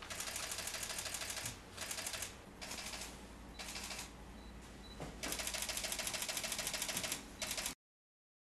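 Pen scratching across paper in several short spurts of writing, then a longer steady run of strokes; it cuts off suddenly near the end.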